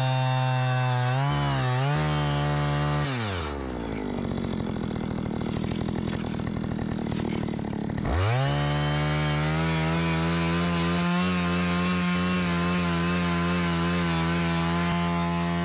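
Gas-powered ice auger drilling through lake ice: the engine runs at high speed, drops to a slow low idle about three seconds in, then revs sharply back up about eight seconds in and keeps drilling at a steady high speed.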